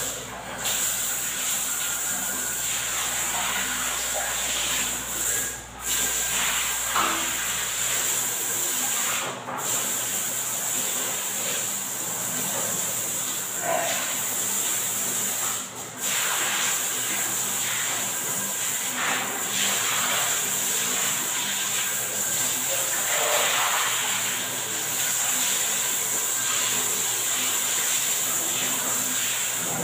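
Handheld bidet sprayer (shattaf) spraying water in a steady stream, breaking off for a moment four times in the first sixteen seconds as the trigger is let go.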